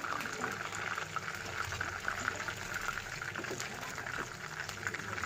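Chicken drumsticks frying in hot oil in a pan: a steady crackling sizzle.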